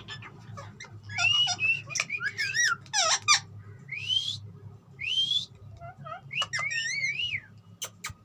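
A parrot whistling and chattering: a run of short warbling whistled notes and clicks, with two rising whistles in the middle.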